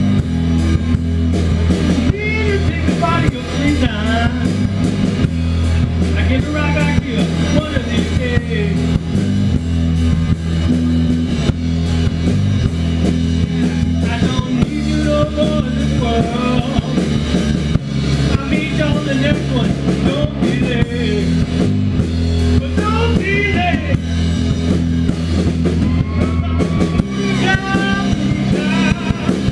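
Live blues band playing: an electric guitar lead with bent, wavering notes over a bass line stepping between low notes and a drum kit keeping time.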